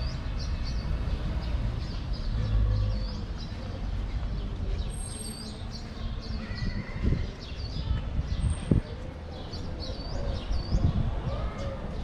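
Small birds chirping over and over in short hooked calls, with a low steady rumble underneath and a few dull thumps in the second half.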